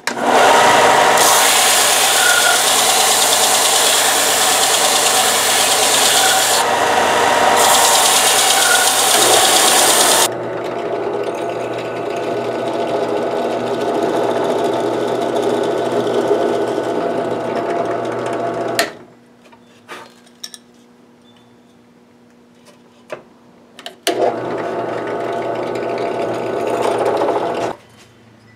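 A loud power tool grinding or cutting for about the first ten seconds. Then a bench drill press motor runs while drilling the pin holes through a knife tang, stopping suddenly a little past halfway. After a few quiet seconds of light clicks and taps, a motor runs again for a few seconds.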